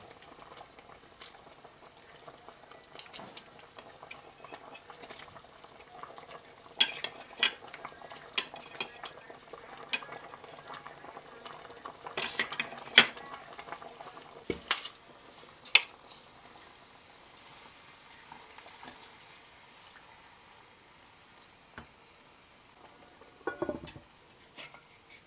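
Kitchen work: utensils clinking against pots and dishes, with a run of sharp clinks in the middle and a short rattle near the end.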